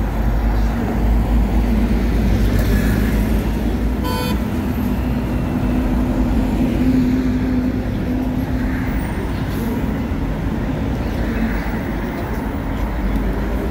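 Heavy city buses running and pulling away in dense traffic: a steady low engine rumble with a held drone. A brief horn toot about four seconds in.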